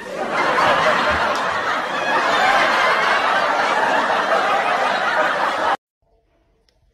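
Crowd laughter: a dense, steady wash of many people laughing that stops abruptly near the end.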